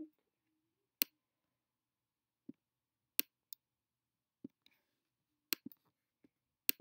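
Sharp single clicks of a computer's pointing device, about six in all, irregularly spaced with silence between, two of them close together about three seconds in.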